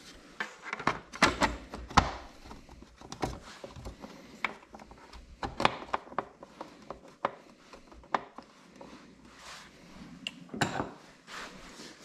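Hard plastic side cover being pressed and worked onto a MotorGuide Xi3 trolling motor's head, its clips being lined up: irregular plastic clicks, knocks and rubbing, the sharpest near one and two seconds in.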